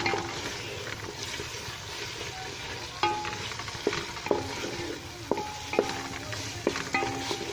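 A metal spoon stirring in a cooking pot over a steady sizzle of frying. From about three seconds in, the spoon knocks against the pot about seven times, each knock a short ringing clink.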